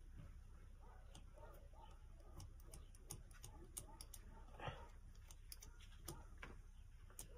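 Near silence: quiet outdoor background with scattered faint clicks and a few soft murmurs.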